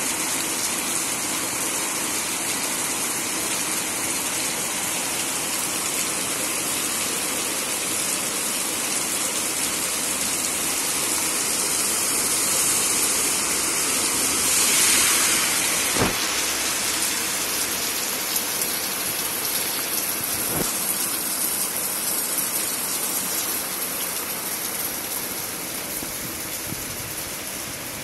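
Heavy typhoon rain falling steadily, swelling briefly about halfway through. A sharp knock comes just after the swell, and a fainter one a few seconds later.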